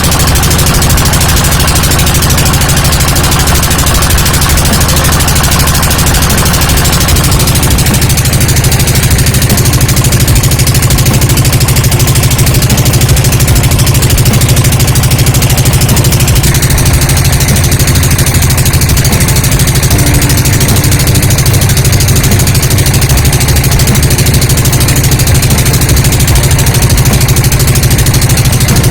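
Motorboat engine running loudly and steadily, a low hum that holds throughout.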